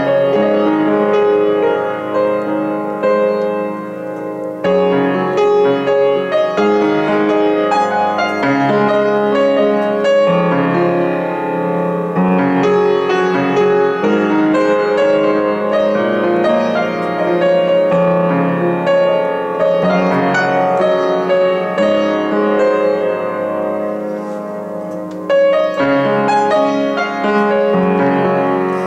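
Upright piano played solo: a flowing original piece of sustained chords on a repeating chord progression. It softens about four seconds in and again near the end, then comes back in strongly.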